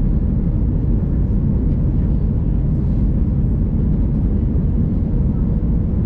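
Airbus A321 cabin noise heard from a window seat: a steady low rumble of engines and rushing air during the descent to land.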